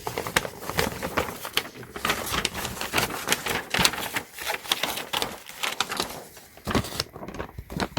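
Dense, irregular clicking and rattling of small hard plastic pieces being handled and fitted together.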